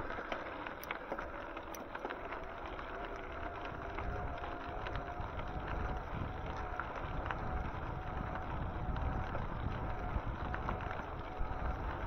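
Wind rumbling on the microphone and road noise from a moving e-bike, with a faint steady whine from about two seconds in.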